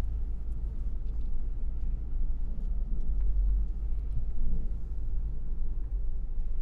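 Steady low rumble of a vehicle driving slowly, heard from inside the cabin.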